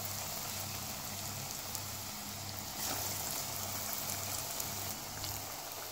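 Breadcrumb-coated potato croquettes deep-frying in hot oil: a steady, even sizzle of bubbling oil.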